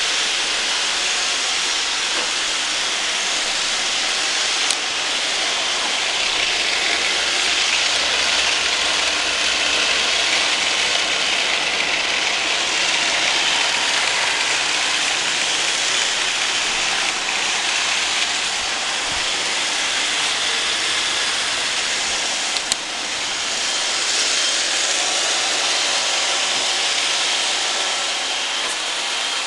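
Roomba robot vacuum running, a steady whirring hiss of its motor and brushes, with a sharp click about 5 seconds in and another near 23 seconds.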